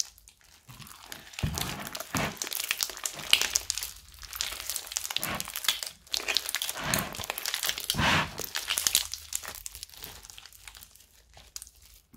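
Wet, bead-filled slime being stretched, squeezed and kneaded by hand: sticky squishing and crackling in irregular waves, full of small clicks and pops.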